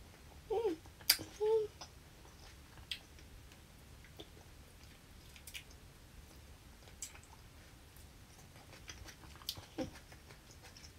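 Close-up chewing of fresh lychee with scattered small clicks and crackles from peeling the thin shells by hand. A sharp click about a second in is the loudest event, and two short hummed sounds come just before and after it.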